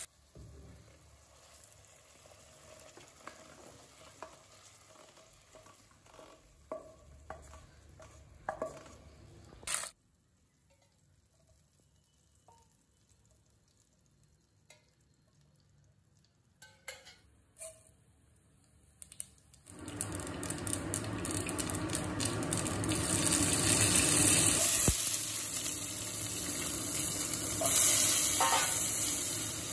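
A quiet stretch with a few soft utensil clicks, then, about two-thirds of the way in, a sudden loud sizzle as small onions (shallots) and curry leaves fry in hot oil in a stainless steel pan, sizzling steadily.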